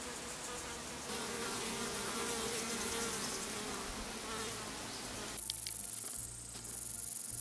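A flying insect buzzing with a wavering pitch for about five seconds. Then the sound changes abruptly to a loud, very high, steady insect trill with a brief break.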